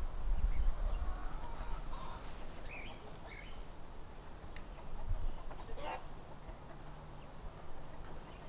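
A few short bird calls, clucking like a hen, over a low steady rumble of outdoor ambience that is loudest in the first second or two.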